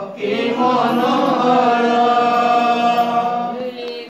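Voices chanting a devotional kirtan with long held notes, after a brief break at the start; the chant cuts off abruptly at the end.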